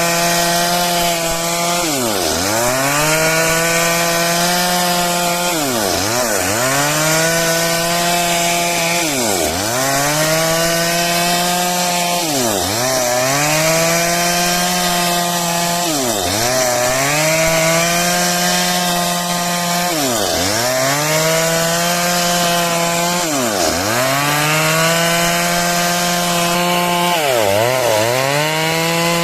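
Stihl MS 382 chainsaw running near full throttle while cutting timber for a beam. Its engine note dips sharply and comes straight back up about every three and a half seconds, eight or nine times.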